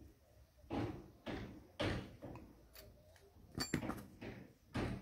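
Handling knocks and clatter as a Honda Shine's metal front brake panel is turned over and worked with a screwdriver on a cardboard sheet. There are several separate knocks, with a sharp, briefly ringing metallic click a little past the middle.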